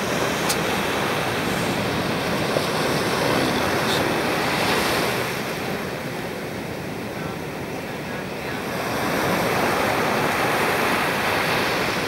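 Ocean surf breaking on a sandy beach: a continuous rush of waves that eases off around the middle and builds up again.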